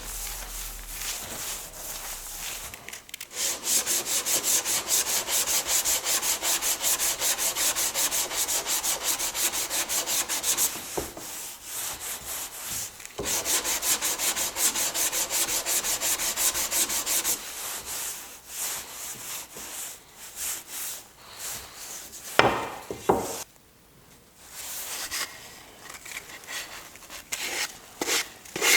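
Sandpaper rubbed quickly back and forth over a wooden board by hand, in a long run of fast, even strokes. The strokes stop after about 17 seconds, giving way to scattered scrapes, a brief squeak and a few knocks of wood.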